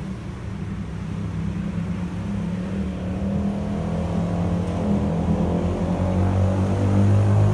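A steady low motor hum made of several tones, growing gradually louder.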